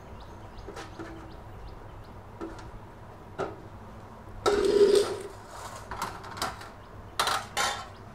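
Stainless steel kitchenware being handled: a few light clinks and knocks of a spoon against steel cups and a plate as ginger-garlic paste is scooped out. About halfway through there is a longer scraping rattle, and two more short ones near the end, as the steel dishes are shifted.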